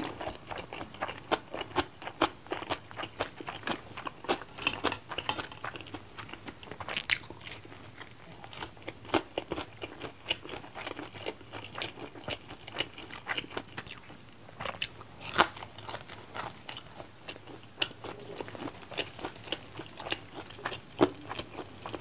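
Close-miked chewing of a mouthful of stir-fried instant ramen noodles: irregular wet clicks, smacks and light crunches, a few of them louder.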